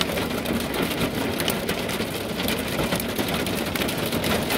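Hail mixed with rain pelting a camper van: a dense, steady rattle of countless small hits on its window and body.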